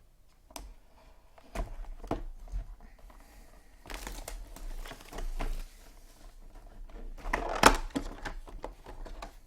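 Packaging being torn open and handled: plastic wrapping crinkling and rustling in bursts, with a sharp knock near the end.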